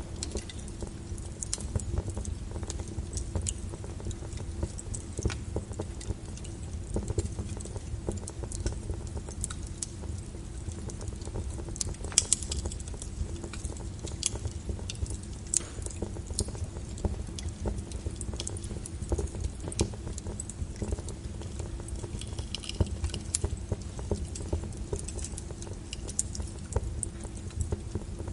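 Wood fire crackling in a fireplace: dense, irregular small crackles and pops over a steady low rumble of the flames, with one sharper pop about twelve seconds in.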